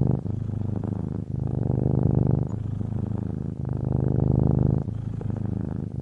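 Domestic cat purring steadily, a rough pulsing rumble. It breaks briefly about every second and a quarter as the cat switches between breathing in and out, with louder and softer stretches alternating.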